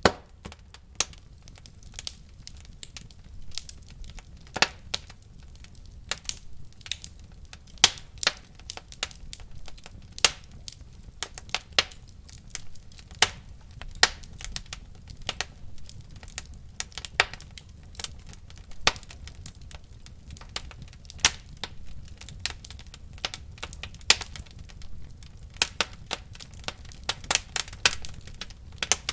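Wood fire in a fireplace crackling and popping, sharp irregular pops over a low steady rumble of the flames.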